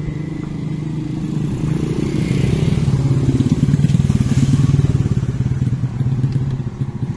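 A motorcycle engine running close by as it passes. It grows louder over the first few seconds, peaks around the middle, and eases off near the end.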